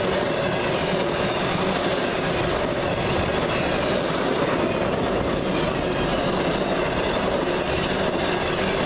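Intermodal freight cars carrying semi-trailers rolling past at speed: a steady rumble and rattle of steel wheels on rail, with a faint steady ringing mixed in.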